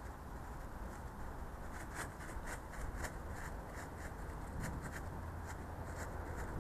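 Dry leaf litter rustling and crackling in short, irregular scratches as a dog noses and paws through it, with a steady low rumble underneath.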